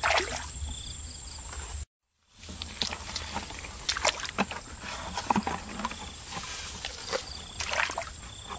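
Bare feet wading and squelching through shallow muddy water, with irregular splashes and sloshes. The sound drops out completely for a moment about two seconds in.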